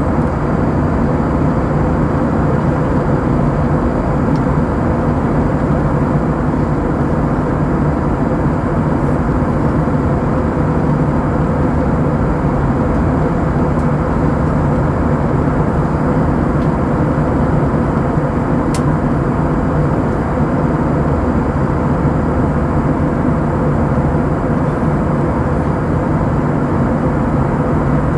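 Steady engine and airflow drone of an Airbus A321-200 heard from inside the passenger cabin, with a low hum and a few steady tones running under it. A single sharp click sounds near the end.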